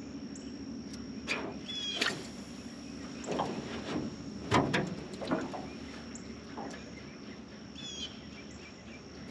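Outdoor ambience of birds chirping, two short falling chirps among them, over a steady low hum and a thin high steady tone, with several short sharp knocks and splashes clustered through the middle.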